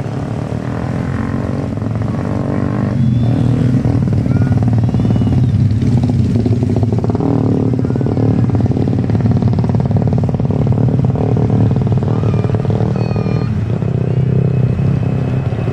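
Twin-engine jet airliner on its takeoff roll at full thrust: a heavy engine rumble that grows louder over the first few seconds as the aircraft accelerates toward the listener, then holds steady and loud.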